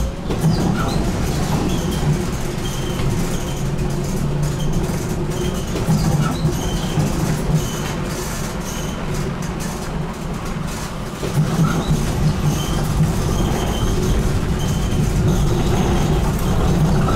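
BN GTL8 tram running along the track, heard from the driver's cab: a steady low rumble of wheels and running gear with occasional rail clicks. It grows louder about eleven seconds in.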